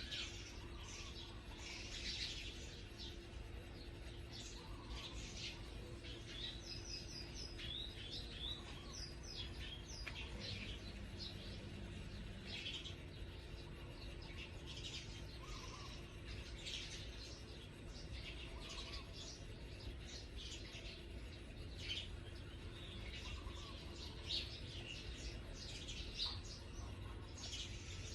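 Birds chirping, many short high calls one after another, over a steady low background rumble with a faint constant hum.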